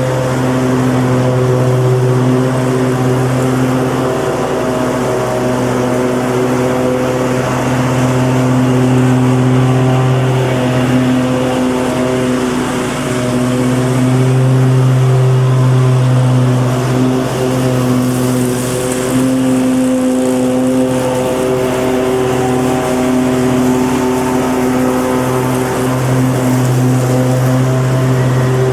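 Lawn mower engine running steadily at an even pitch, swelling a little in loudness now and then.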